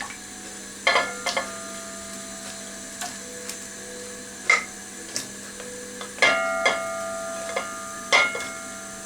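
Hard pieces of dried stockfish knocking and clinking into a metal cooking pot, about nine sharp knocks spread out, several leaving a brief metallic ring.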